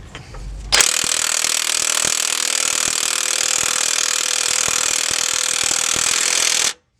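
Snap-on impact wrench running in one continuous burst of about six seconds: a loud, hissing, rapid hammering rattle that starts just under a second in and stops abruptly near the end.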